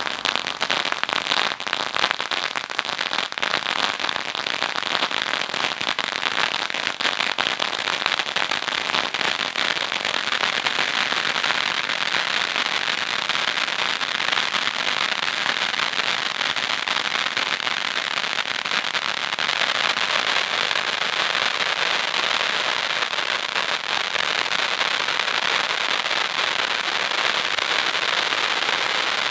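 Big Bertha firework fountain burning: a steady hiss of spraying sparks with dense crackling throughout.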